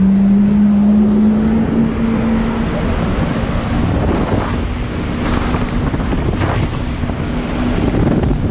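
Jet ski engine running steadily at speed, its drone rising slightly in pitch in the first two seconds, under heavy wind noise on the microphone and rushing water.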